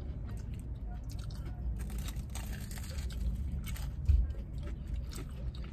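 Crunchy bites and chewing of crispy breaded Korean cheese corn dogs: a run of short crackly crunches, with a dull thump about four seconds in, over a steady low hum.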